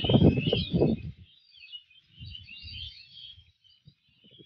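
Small birds chirping and twittering without a break. Low rumbling buffets are the loudest sound in the first second, with weaker ones around the middle and near the end.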